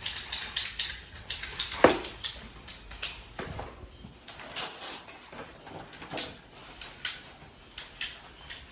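Irregular light clicks and clinks of hard objects being handled, several a second, with a louder knock about two seconds in.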